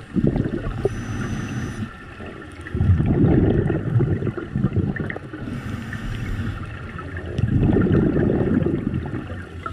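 A diver breathing through a scuba regulator underwater: twice, a short hiss on the inhale is followed by a louder gurgling rush of exhaled bubbles.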